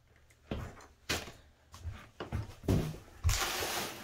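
Reproduction flintlock pistol being worked by hand: a few sharp mechanical clicks and snaps from the hammer, then a hiss lasting under a second near the end.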